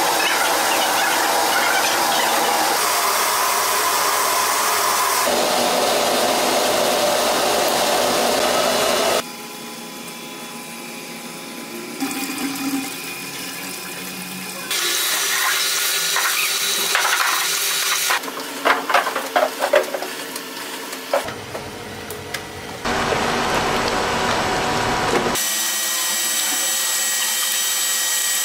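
Dairy filling and packing machinery running: steady machine noise that changes abruptly every few seconds, with a quieter stretch in the middle holding a run of sharp clicks and knocks.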